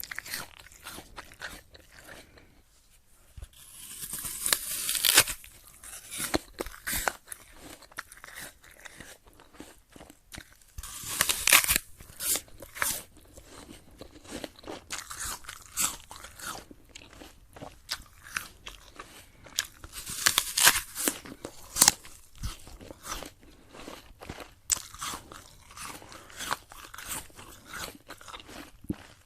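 A person biting into a crisp, crunchy apple and chewing it: three longer, louder crunches about four, eleven and twenty seconds in, with smaller crisp chewing crunches in between.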